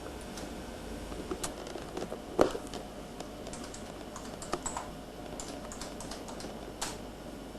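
Typing on a computer keyboard: scattered, irregular keystrokes, the loudest about two and a half seconds in, over a faint steady hum.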